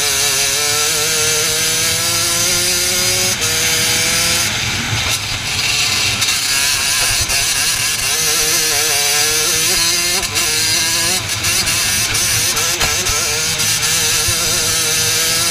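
Racing kart engine heard from the driver's seat, its pitch climbing as it accelerates and dropping sharply when the throttle is lifted for corners, several times over.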